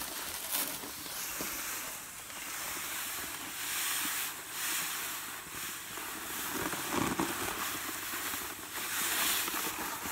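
Dry deer feed pouring out of paper sacks into a trough feeder: a rushing hiss of grain and meal running out of the bag, coming in several surges with short lulls between them.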